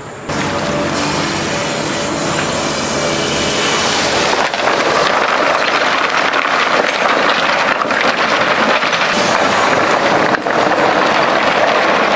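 Hydraulic excavator running while riprap stone pours from its bucket into shallow water. A steady engine hum starts suddenly. From about four seconds in it is joined by a dense, continuous rush of noise.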